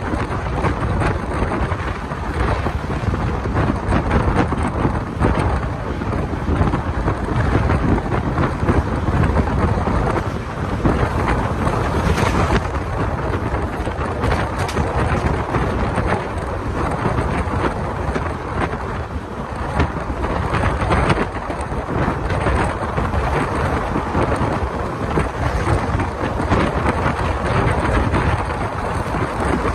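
Wind rushing over a microphone held out of the window of a moving passenger train, over the steady rumble of the coach running along the track.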